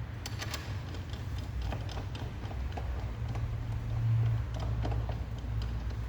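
Scattered light clicks and knocks as a new rubber control-arm bushing and its press tool are handled and set up again, over a steady low hum that swells about four seconds in.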